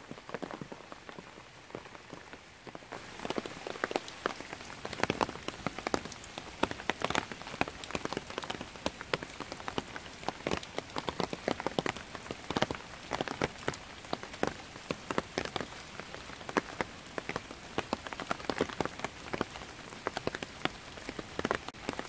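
Heavy rain falling on forest leaves, a steady hiss dense with the sharp strikes of individual close drops. About three seconds in it becomes louder and fuller.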